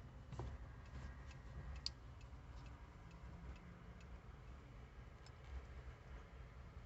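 Quiet room tone with a low steady hum and faint, irregularly spaced small clicks and ticks from hands handling string and small parts.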